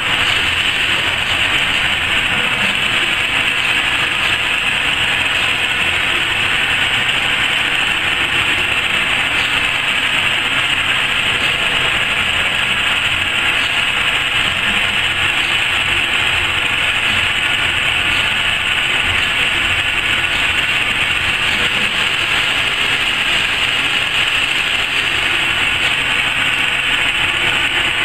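Automatic-feed laser fabric cutting machine running while it cuts cloth: a steady mechanical whir and hiss.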